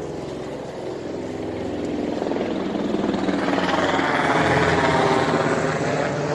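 Helicopter passing overhead: engine and rotor noise swells to its loudest about four to five seconds in, then begins to fade.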